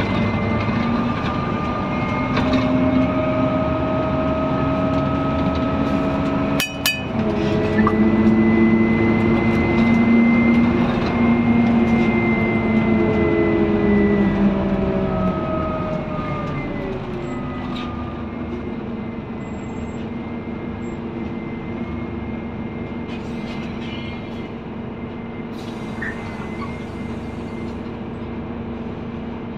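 On board a Scania N230UD Omnidekka double-decker bus: its five-cylinder diesel engine and transmission whine rising in pitch as the bus pulls away, with a gear change about seven seconds in. The pitch rises again, then eases off after about fifteen seconds, and the bus settles into a steady, lower drone.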